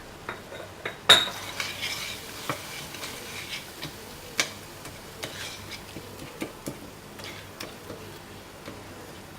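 A spoon stirring and scraping a tomato-and-spice masala frying in oil in a pan, with irregular clicks of the spoon against the pan, the loudest about a second in, over a faint sizzle.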